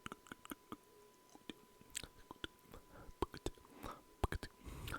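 Close-miked ASMR mouth sounds: an irregular, rapid run of short clicks and smacks of the lips and tongue.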